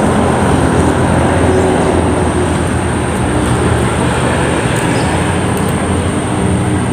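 A vehicle engine running steadily, a constant low rumble and hum.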